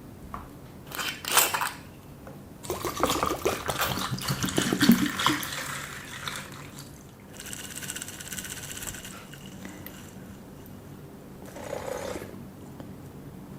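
Wet, splashy food sounds of oysters and salad being handled and liquid being poured or squeezed over them, in bursts: briefly about a second in, a longer busy stretch of wet clicks from about three to six seconds, then a hiss-like stretch around eight seconds.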